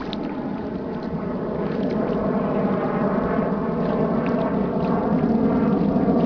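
Tour boat's engine running steadily under way, its drone growing gradually louder, with wind buffeting the microphone.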